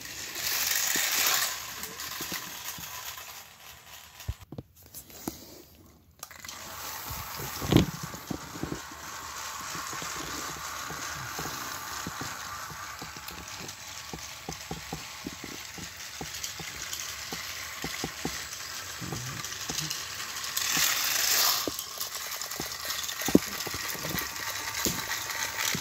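Battery-powered Thomas & Friends TrackMaster toy engines whirring along plastic track, with a clattering of small clicks and one sharp knock about eight seconds in. The sound briefly drops out about five seconds in.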